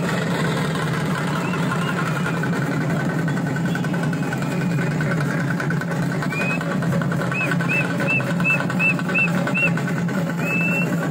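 Troupe of Tamil thappu (parai) frame drums playing a fast, dense roll for a kavadi dance. From about seven seconds in, a run of short high chirps repeats about three times a second over the drumming.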